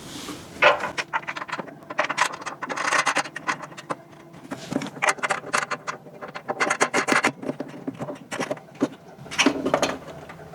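Two threaded knobs being screwed in by hand to fix the photo booth head to its pillar: irregular scraping, rubbing and small clicks as the knobs turn and the parts shift against each other.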